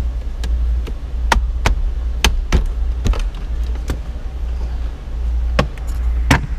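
Plastic interior trim around a car's centre console being handled: a string of sharp, irregular clicks and taps over a steady low rumble.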